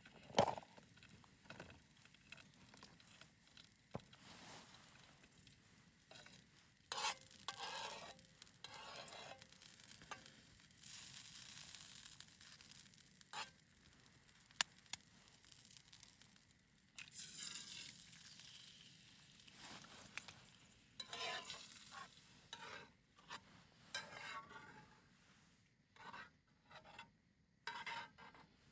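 Quiet handling sounds: irregular rustling and scraping with scattered sharp clicks.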